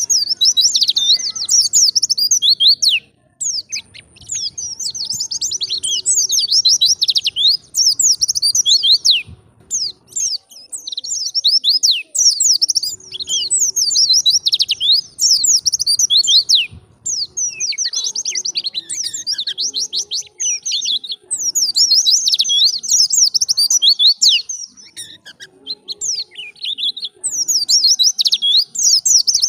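White-eye (pleci) singing: long runs of rapid, high twittering notes in phrases a few seconds long, with short breaks between them.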